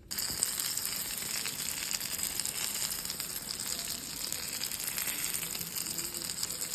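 Food shallow-frying in hot oil: a steady, crackling sizzle that starts and stops abruptly.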